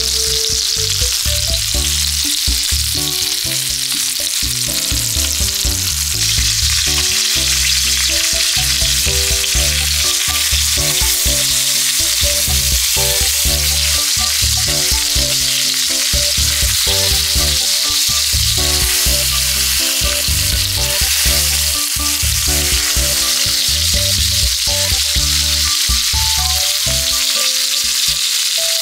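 Steak sizzling steadily as it sears in hot butter and oil in a frying pan, with background music playing underneath.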